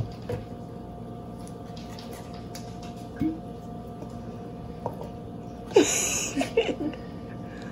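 Quiet handling of a glass tequila bottle as it is lifted from its cardboard box and uncorked, with a small knock about three seconds in and a short scraping squeak about six seconds in as the cork stopper is worked out. A steady background hum runs underneath.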